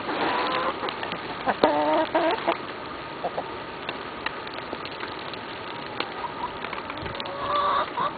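Backyard hens calling, a string of drawn-out complaining calls and clucks: a few in the first seconds and another near the end, with light clicks between. The calls are displeasure from hens soaked by a soggy blizzard.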